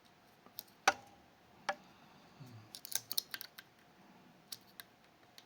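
Sharp metallic clicks of a pick presetting a lever inside a Fichet 484 lever sidebar lock. There is a loud click about a second in, another shortly after, a quick cluster of small clicks midway, and two lighter ticks near the end.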